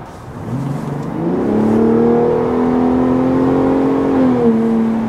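Gen 3 Ford Raptor's 3.5-litre twin-turbo EcoBoost V6, heard inside the cab with the active exhaust in sport mode, accelerating hard. The engine note climbs over the first second and a half and holds high at about 5,400 rpm. Near the end the pitch drops as the transmission upshifts.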